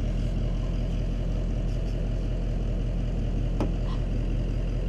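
An engine idling steadily, with a single sharp click about three and a half seconds in.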